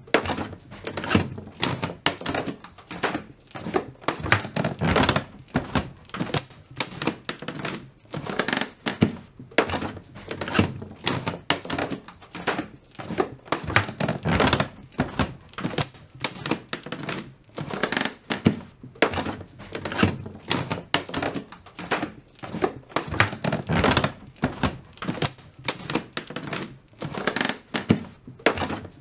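Barefoot footsteps on a wooden-sounding staircase: a steady run of soft, quick thuds, about two to three steps a second, with the ring of a small indoor room.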